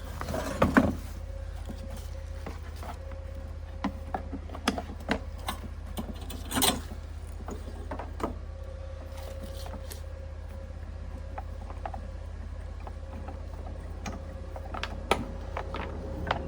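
A steady low machine hum with scattered clicks and knocks of equipment being handled, the loudest clunks about a second in and near seven seconds.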